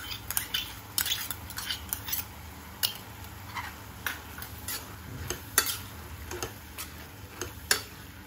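Steel spoon stirring penne pasta in sauce in a kadhai, clinking and scraping against the pan at irregular moments, with a low steady hum underneath.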